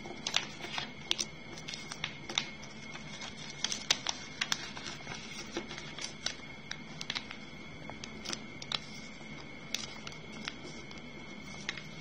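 Origami paper crinkling and rustling as it is folded, opened and creased flat by hand, in short irregular crackles and taps on a wooden tabletop. A faint steady high whine sits underneath.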